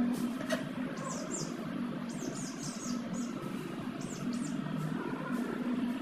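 Small birds chirping in quick runs of short, high, falling notes, over a steady low hum.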